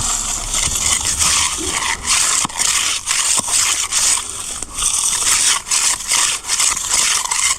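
Hand tool scraping across wet concrete in quick repeated strokes, about two a second.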